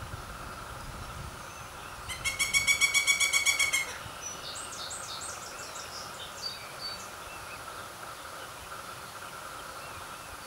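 Pileated woodpecker calling: a loud, rapid series of about a dozen evenly spaced notes, some eight a second, lasting under two seconds. Afterwards a fainter run of high, falling notes from another bird, over a steady faint insect hum.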